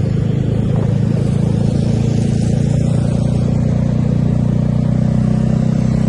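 Bus diesel engine idling steadily, loud and close, with an even low pulse and no change in pitch.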